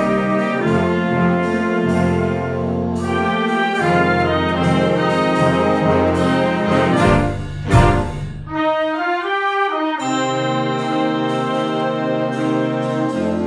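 Concert band playing a slow blues, with sustained brass chords over low bass parts. A little past the middle a loud accent hits, then the low instruments drop out for a couple of seconds before the full band comes back in.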